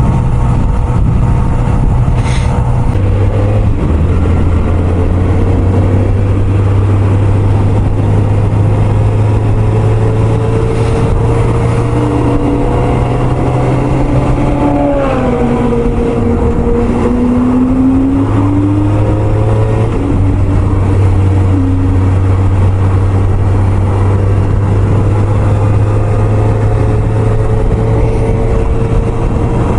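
Kawasaki ZX-4RR's inline-four engine running at highway speed under steady wind rush. About halfway through, its pitch drops briefly and then climbs again as the throttle is eased off and reopened.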